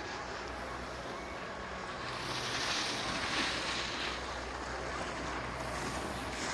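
Steady rushing wind on the microphone with a hissing scrape over snow. The scrape swells louder from about two seconds in, then eases.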